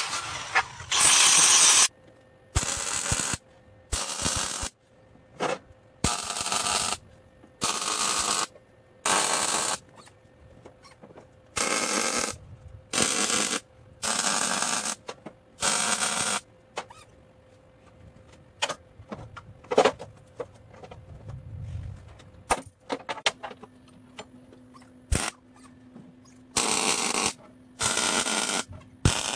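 MIG welder laying a series of short tack welds: about a dozen bursts of arc noise, each about a second long, with short pauses between. Partway through there is a longer break with a few sharp clicks and knocks, then the bursts resume.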